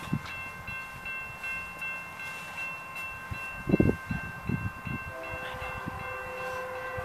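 Horn of an approaching BNSF freight locomotive held in one long steady blast. It is a fouled horn, with its chimes not sounding cleanly, and lower notes join about five seconds in. A few low thumps come around the middle.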